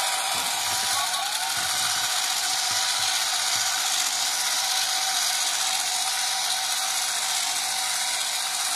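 Motorised Zoids Liger Zero X model walking under remote control: its small electric motor and plastic gearbox run steadily with a whirring, ratcheting gear noise.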